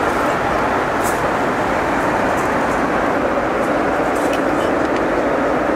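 Steady rushing cabin noise of a Boeing 717-200 in flight: airflow and its rear-mounted Rolls-Royce BR715 turbofan engines heard from inside the passenger cabin, with a few faint ticks.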